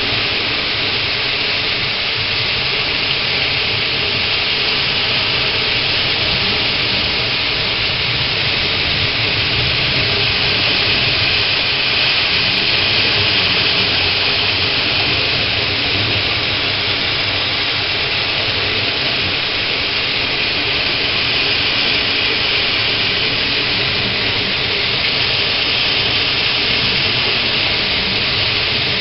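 Heavy rain pouring down in a downpour: a loud, constant, even hiss that holds steady throughout.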